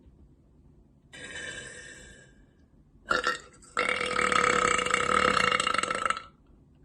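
A woman burping. A shorter burp comes about a second in and fades. Then a loud burp starts about three seconds in, breaks briefly, and carries on long and steady for over two seconds before cutting off.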